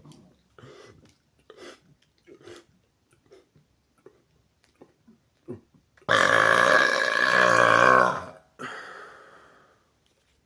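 A man's deliberately forced burp: several short breaths, then about six seconds in one loud, long burp lasting about two seconds, trailing off into a quieter fading tail.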